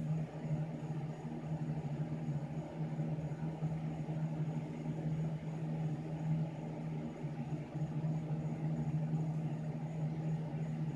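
A steady low mechanical hum, running unchanged throughout.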